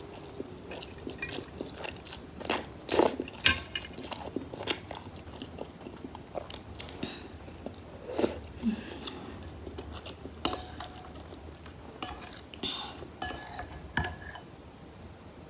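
Close-miked eating sounds: chewing and biting of spicy instant noodles, with irregular short mouth clicks scattered throughout.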